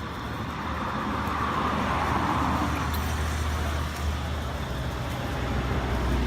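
A passing road vehicle: a low rumble under a noise that swells about two seconds in and then fades.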